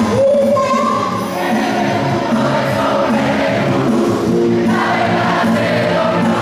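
A woman singing into a microphone through a PA system over a recorded backing track. Her first note slides up and is held.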